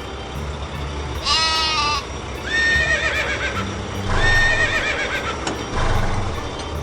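Three wavering, bleat-like cartoon vocal cries, each under a second long, over a steady low background of cartoon music or sound effects.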